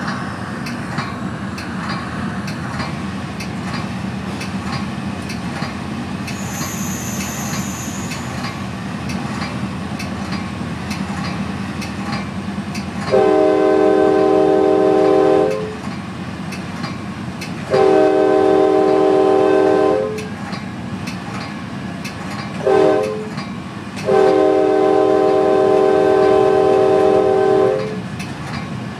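Metra commuter train heard from inside its cab car at speed: a steady rumble of wheels on rail with light clicking. About halfway through, the train horn sounds a loud multi-note chord in four blasts, long, long, short, long, which is the standard grade-crossing warning pattern.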